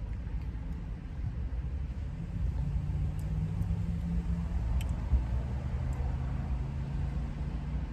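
Low, steady rumble of a car engine running, with a deeper hum that comes up about two seconds in and holds.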